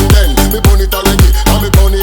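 Background music with a steady beat: a heavy kick drum and deep bass hitting about twice a second.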